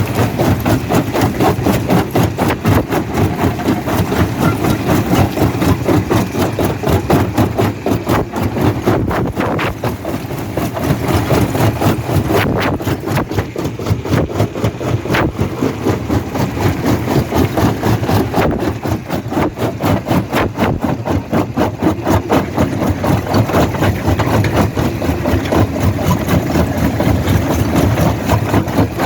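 Jaw crusher running and crushing rock: a continuous heavy machine drone with a fast pulsing rhythm and many sharp knocks of stone breaking.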